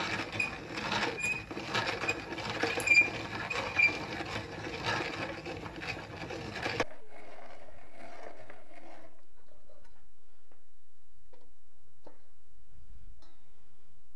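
Hand-cranked corn grinder with grooved metal plates grinding lye-treated corn into fresh masa: a rough scraping and clicking of the turning plates that cuts off suddenly about seven seconds in, followed by only faint, scattered small sounds.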